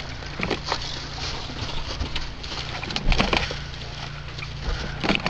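Footsteps crunching and rustling through dry, matted grass, in irregular strokes with the loudest crunches about three seconds in and again near the end, over a steady low hum.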